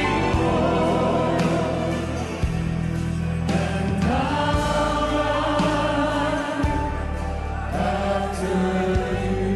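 Choir and congregation singing a slow gospel worship chorus over instrumental accompaniment, with sustained bass chords that change every couple of seconds.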